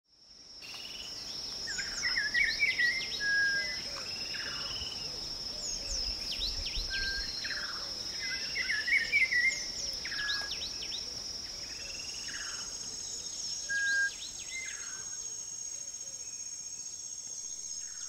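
Tropical forest ambience: a steady high insect drone with several birds calling over it in chirps, short whistles and downward-sweeping notes, some phrases recurring every few seconds. It fades in from silence at the start.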